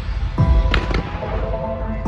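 Fireworks bursting: a deep boom with sharp cracks about half a second in, over music with held notes playing alongside.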